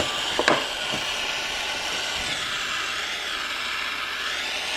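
Aero acetylene soldering torch burning with a steady hiss as it heats the copper tip of the soldering iron during tinning.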